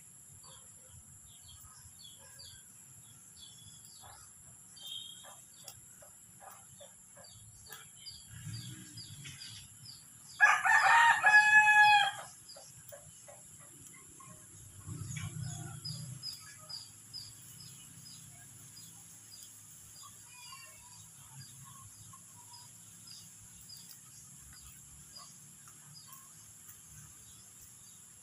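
A rooster crowing once, about ten seconds in: one long call of about two seconds, by far the loudest sound. A steady high-pitched hum and scattered small bird chirps run underneath.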